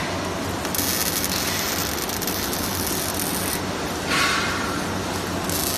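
Robotic MIG welding arc crackling in short welds: the arc strikes about a second in, stops after about three seconds, then strikes again near the end. A steady low machine hum runs underneath.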